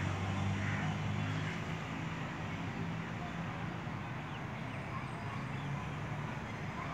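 Low steady engine hum, as of a motor vehicle running nearby, over outdoor background noise; it is strongest in the first second and a half, then eases off.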